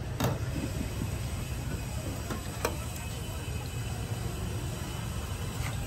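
Busy market background: a steady low rumble, with a couple of light clicks of a metal spoon against a plate.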